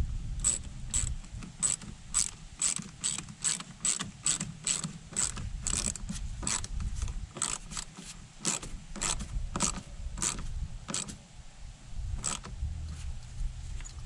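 Hand ratchet clicking at about two clicks a second, one click per back-swing of the handle, tightening a hose clamp on a skid steer's fuel line.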